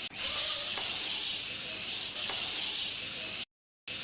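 A steady high-pitched hiss, played in edited sections that start and stop abruptly. It cuts out a little after three seconds and starts again just before the end.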